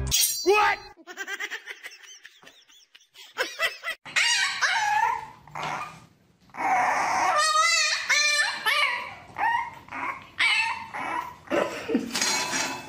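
French bulldog puppy barking, yipping and whining in a run of short, high, wavering cries, starting about four seconds in.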